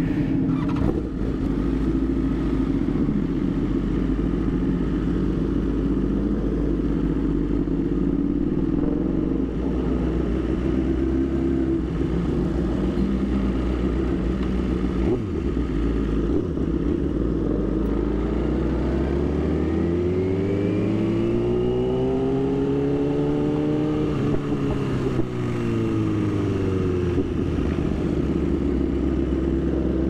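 BMW S1000RR's inline-four engine idling steadily, then pulling away about halfway in and revving up and down through the gears, its pitch climbing and falling in long sweeps.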